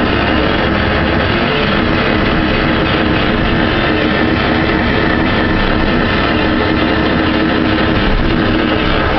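Loud rock music with heavily distorted guitars, a dense steady wall of sound.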